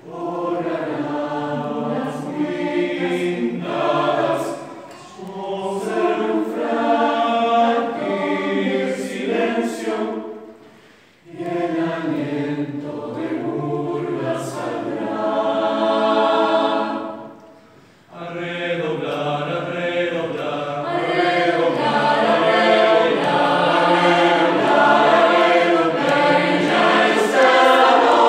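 Mixed choir of men's and women's voices singing unaccompanied in several parts, in phrases broken by two short pauses about 11 and 18 seconds in. It grows louder and fuller in the last third.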